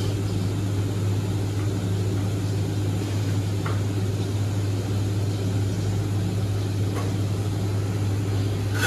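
Steady low machine hum, with a few faint clicks and a sharper knock near the end.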